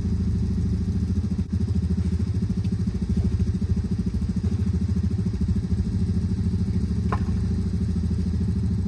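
Jeep Grand Cherokee ZJ's engine running steadily at low revs, its firing pulses quick and even.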